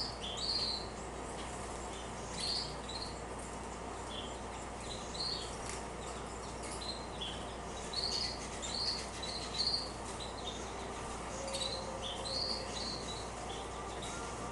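Female canaries calling: short, high chirps, a dozen or so scattered through, over a steady background hiss.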